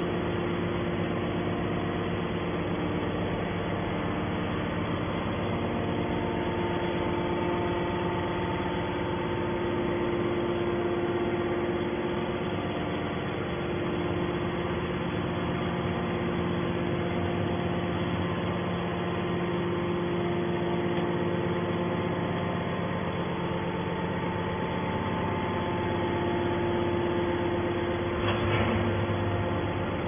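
Hydraulic scrap metal baler's motor and pump running with a steady, even hum, with a short knock near the end.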